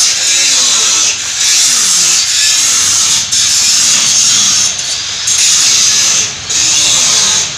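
A power tool running with a loud, steady, high-pitched whirring hiss that drops away briefly several times.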